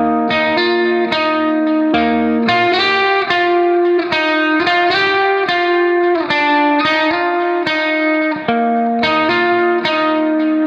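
Background music led by a plucked guitar playing a quick run of notes.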